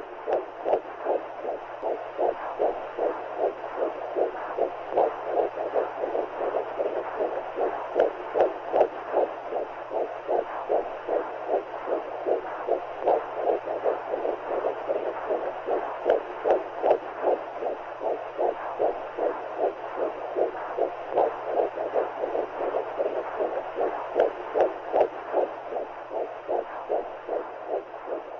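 A steady rhythmic pulse of about two beats a second, heartbeat-like, over a low steady hum.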